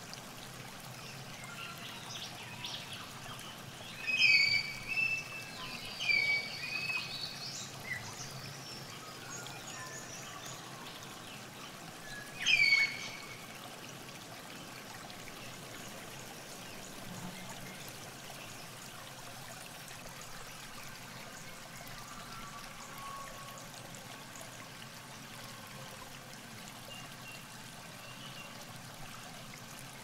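Steady trickling and rushing of a river flowing over a shallow riffle. A bird gives several short, loud calls about four to eight seconds in and one more about twelve seconds in.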